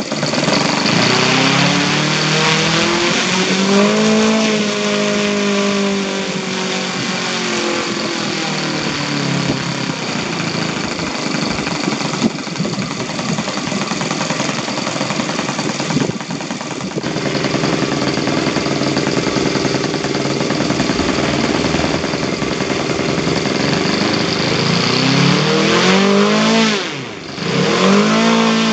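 Freshly rebuilt Yamada FZ-53 four-stroke model engine running with a propeller on its first run, revved with the throttle. Its pitch climbs over the first few seconds and eases back, then holds steady at speed. Near the end it dips sharply and picks up again quickly.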